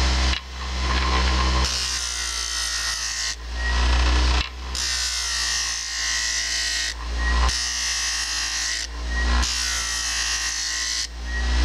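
Small bench grinder with a diamond disc running while a solid copper bar is pressed against it and ground, the grinding breaking off and starting again every second or two.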